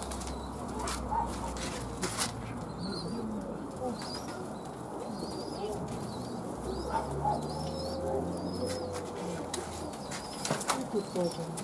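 Pigeons cooing in the loft, with wing flaps and clicks as young pigeons are handled. A run of short high chirps repeats about once a second through most of it.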